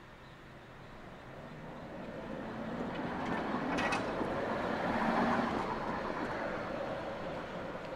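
Tatra KT4D articulated tram pulling out of the stop and passing close by. Its running noise swells to a peak about five seconds in, then fades, with a brief clatter just before four seconds in.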